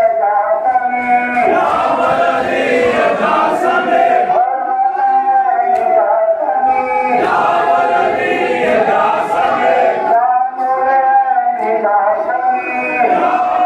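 A crowd of men chanting a Shia mourning lament (noha) together, in long sung phrases that break off and begin again every few seconds.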